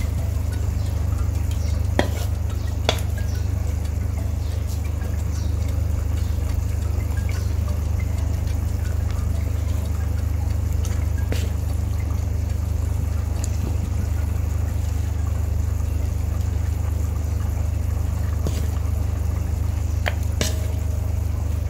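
Wooden spatula stirring and scraping a fish head through wet chilli-shallot paste in a metal wok, with a few sharp taps of the spatula against the pan, over a steady low hum.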